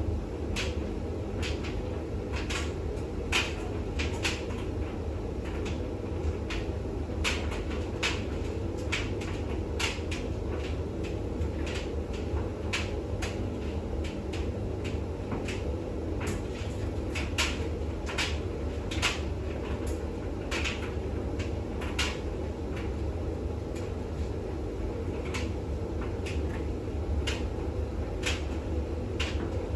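Bosch WAX32GH1 washing machine in its intermediate spin: a steady low drum-and-motor hum with irregular sharp clicks and knocks, roughly one a second.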